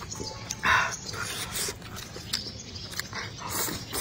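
Close-up eating sounds: chewing, with short clicks of chopsticks on the dishes, and one short, loud noisy burst about three-quarters of a second in.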